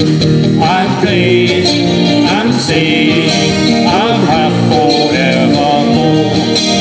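Live band playing an instrumental passage: guitars and drum kit, with a harmonica carrying the melody through the PA.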